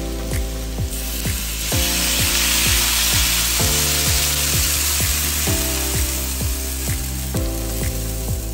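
Warm or boiling water poured into a hot wok of sautéed macaroni, a rushing hiss that swells about two seconds in and fades out after about five seconds. Background music with a steady beat plays throughout.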